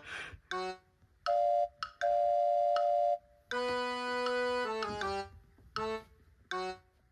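Background music: a light electronic tune of short notes stepping downward and notes held for about a second, in phrases separated by brief pauses.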